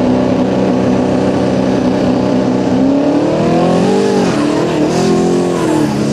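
Vintage pickup drag truck's engine held at a steady high rev at the start line, then launching about three seconds in, its pitch climbing and dipping as it accelerates away.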